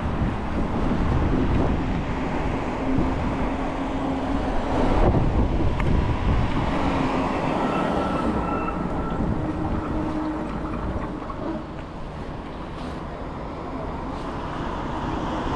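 Steady rush of wind on the microphone mixed with road traffic noise, with faint passing engine tones.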